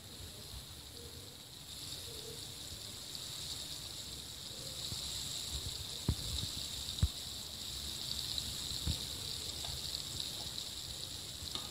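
Lentil kabab patties sizzling as they shallow-fry in hot oil in a frying pan. The sizzle grows as more patties go in, with two light knocks about six and seven seconds in.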